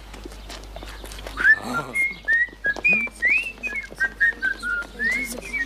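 Someone whistling a tune: a run of short, clear notes that starts about a second and a half in and wanders up and then gently down, with light clicks scattered underneath.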